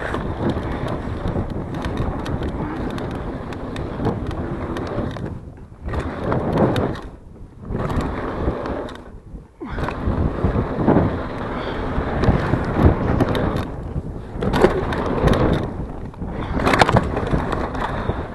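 Mountain bike riding over dirt jumps: knobby tyres rolling and crunching on packed dirt, with the bike rattling and wind noise on the microphone. The noise drops out briefly several times and comes back.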